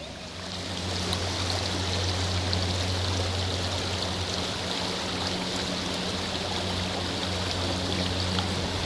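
Shallow, rocky mountain creek running fast over stones: a steady hiss of rushing water that comes up about half a second in, with a low steady hum underneath.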